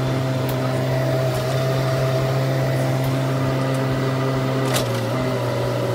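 Bobcat E10 mini excavator's diesel engine running steadily under digging load, with a whine over it that dips briefly in pitch as the arm and bucket work. A single sharp clank comes a little before five seconds in.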